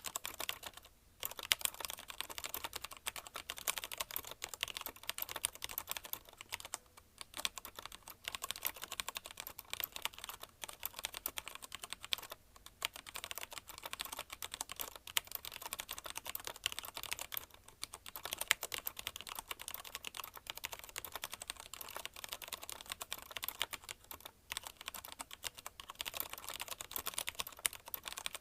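Fast, continuous typing on a CM Storm QuickFire TK mechanical keyboard with linear Cherry MX Red switches: a dense stream of key clicks and clacks, broken by short pauses about every five seconds.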